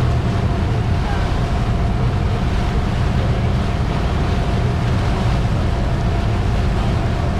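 Boat under way at speed: a steady, deep mix of the motor running, the wake churning behind the stern and wind buffeting the microphone, with a faint steady whine above it.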